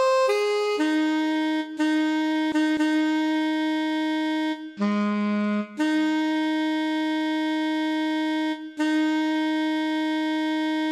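Slow instrumental introduction: a single wind-instrument voice playing a melody of long held notes with short breaks between them.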